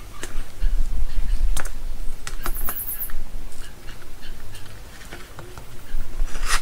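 Hands handling an inverter's circuit board: scattered taps, clicks and a short scrape as the board is shifted on the bench, with a low bump about a second in.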